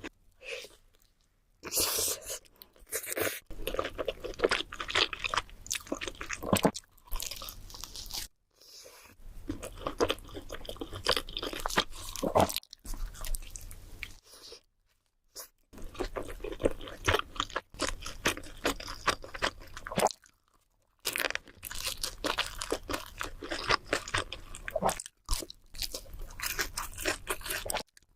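Close-miked eating: crunchy bites and chewing of fast food, in a run of short clips with brief silent breaks between them.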